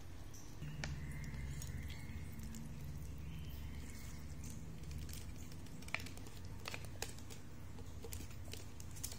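Sparse light clicks and taps of a metal fork against the noodle cup and a ceramic plate as cooked instant noodles are tipped out, over a low steady hum.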